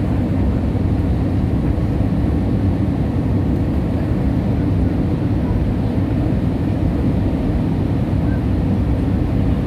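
Steady cabin noise inside a jet airliner descending on approach: a low engine and airflow rumble with a faint steady hum, unchanging throughout.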